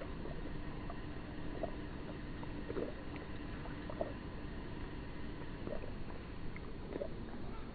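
A tabby cat lapping milk from a metal bowl, with the sound slowed to one-fifth speed. Short separate laps come roughly once a second over a steady low background noise.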